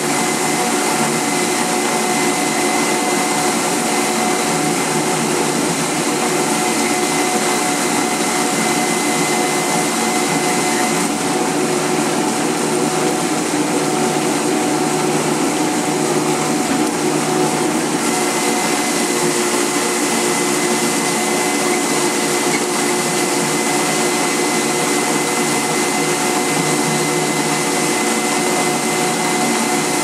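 A DZ-1 radish washing machine running: its electric motor hums and whines steadily while the spinning bristle brush rollers scrub a daikon radish under water, giving an even hiss. The tone changes slightly for a few seconds in the middle.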